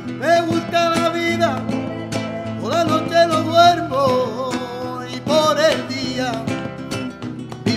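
A man singing a flamenco-style melody with long, bending, held notes over a strummed acoustic guitar with sharp, rhythmic strokes.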